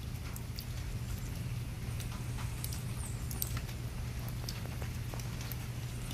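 Shallow water trickling over gravelly ground, heard as irregular small drips and patters, over a steady low hum. A few brief high chirps that fall in pitch come in about halfway through.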